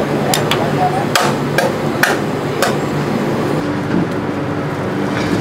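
Metal spoon clinking against the iron dosa griddle while potato filling is spooned on: about six sharp taps in the first three seconds, over a steady hum.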